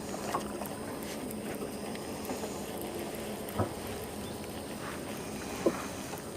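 Steady low hum and water noise around a small fishing boat, with two small knocks, one in the middle and one near the end.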